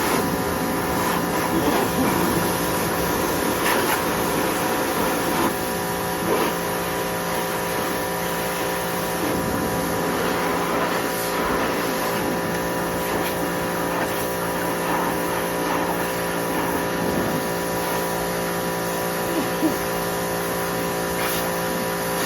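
Electric pressure washer running steadily, its motor and pump humming with a constant whine, over the hiss of the water spray.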